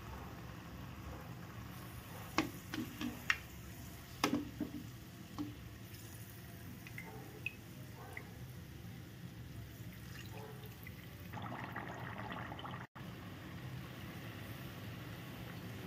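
Coconut oil sizzling softly in a metal kadai as a palm-jaggery rice-flour paniyaram deep-fries. A few sharp clicks of the steel slotted ladle against the pan come about two to five seconds in, and the sizzle grows denser near the end.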